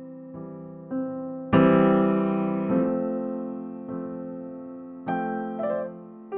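Background music: slow, soft piano with single notes and chords that ring and fade, the loudest chord about one and a half seconds in.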